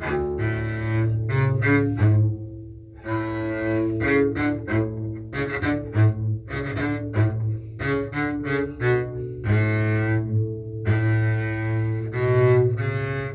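Double bass played with the bow: a passage of low notes, some short and detached, others held longer, with a brief pause about two seconds in.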